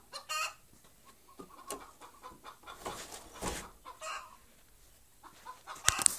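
A chicken clucking now and then, faint. In the last moment come sharp clicks and knocks of the camera being handled.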